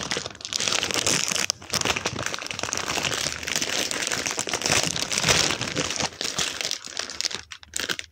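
Plastic packaging bag of croissants crinkling almost without a break as it is handled and pulled open at the top, with short pauses about a second and a half in and near the end.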